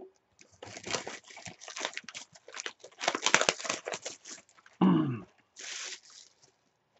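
A sealed cardboard trading-card box being opened. Its plastic wrap and security seal tear and crinkle over a run of quick cardboard scrapes and taps, ending with one short rustle near six seconds in.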